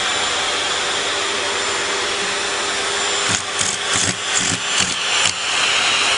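Electric air pump running, air rushing steadily from its hose with a faint hum, then from about three seconds in the rush comes and goes in short uneven pulses as the nozzle is mouthed and pawed.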